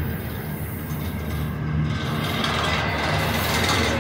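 Union Pacific double-stack intermodal well cars rolling slowly past: a steady low rumble of steel wheels on the rails. A rushing, rattling noise grows louder from about halfway.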